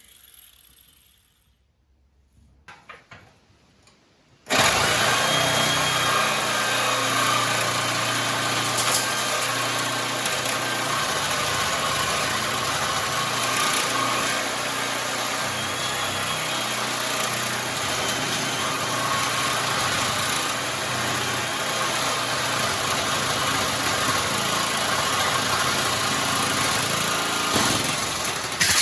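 Electric cutting tool, most likely an angle grinder with a cut-off wheel, cutting through the steel frame rail of a 1995 Jeep Wrangler. It starts suddenly about four and a half seconds in after a few small clicks, runs loud and steady, and stops near the end.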